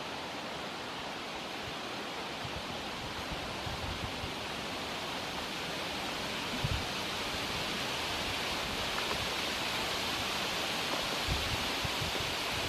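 Steady outdoor background hiss, an even rushing noise that grows slightly louder, with a few brief low thumps.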